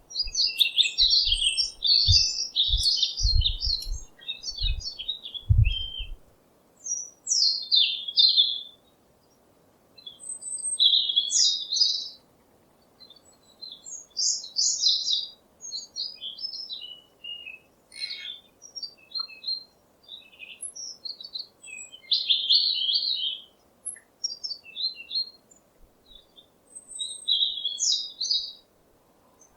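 Songbirds chirping, in quick runs of short high chirps and trills with brief gaps between phrases. Several low thumps sound during the first six seconds.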